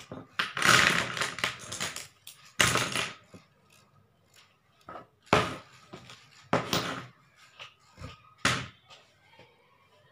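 Drawing pencils, paper blending stumps and other art tools being dropped and set down on a board, clattering in a series of separate bursts a second or two apart, the longest near the start.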